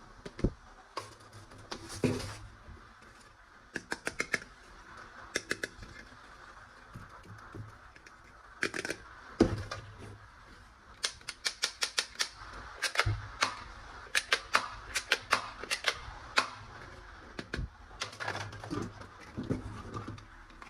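Hard plastic clicking and snapping from handling toy guns, with scattered single clicks and several quick runs of clicks.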